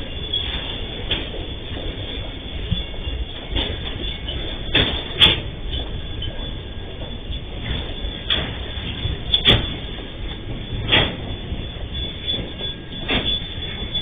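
Freight train's container wagons rolling past: a steady rumble broken by sharp clanks every one to two seconds.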